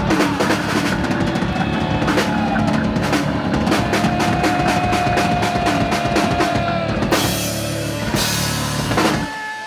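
Live rock band playing electric guitar and drum kit, building to the end of a song with a run of drum hits and crashing cymbals. The band stops abruptly near the end.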